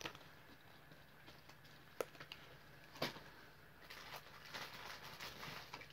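Quiet handling noise from hands putting down a paper pad on a fleece blanket: a few light taps, about two and three seconds in, then soft rustling near the end.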